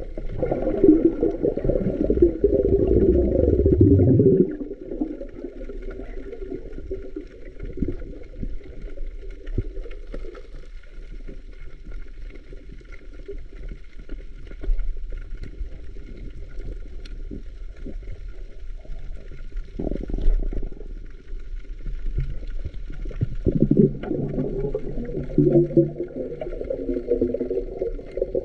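Muffled underwater sound picked up through a camera's waterproof housing: low rumbling and gurgling water, loudest in the first few seconds and again near the end, with a faint steady high hum throughout.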